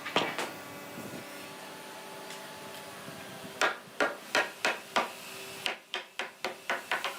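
Hammer blows on wood: two knocks just after the start, then a run of about a dozen sharp strikes from about halfway, coming faster near the end, over a faint steady hum.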